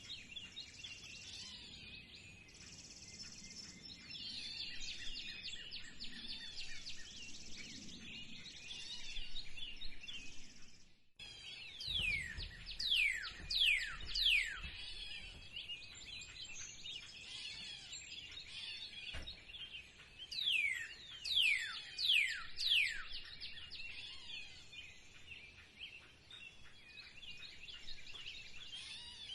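A spring chorus of many small birds chirping and twittering, with one bird giving loud, steeply falling whistled notes in two runs of four or five. The chorus drops out for a moment just before the first run.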